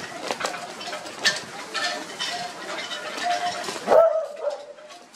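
Australian Cattle Dog puppies giving short, high whines among scuffling clicks, with one louder yelp about four seconds in.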